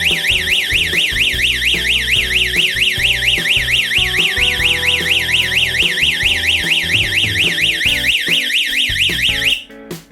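Electronic alarm siren of a home security alarm system, sounding a fast up-and-down sweep at about four or five sweeps a second, then cutting off suddenly near the end as its 10-second alarm cycle switches off automatically.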